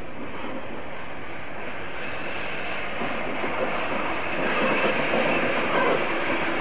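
Steam locomotive and its train running into a station, the noise growing louder from about halfway through as it draws near.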